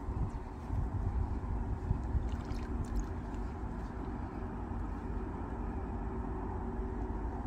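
Wind rumbling on the microphone, with a few faint clicks about two to three seconds in.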